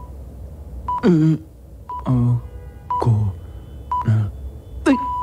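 Radio time signal: six pips about a second apart, the last one held longer to mark the hour. Each pip is followed by a short voice sound sliding down in pitch, and these are louder than the pips.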